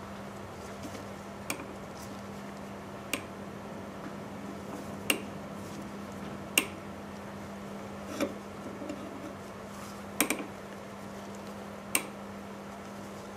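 A tap being hand-turned into a hole in a Maytag engine carburetor cap held in a lathe chuck: a short, sharp metallic click about every one and a half to two seconds, seven in all, over a steady low hum.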